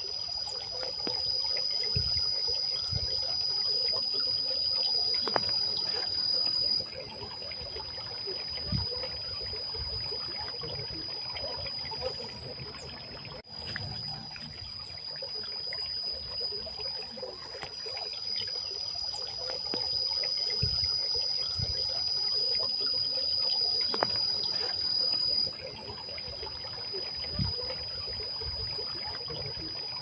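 Water trickling and splashing from the spouts of a tiered stone garden fountain into its basins, with a steady high-pitched insect drone over it.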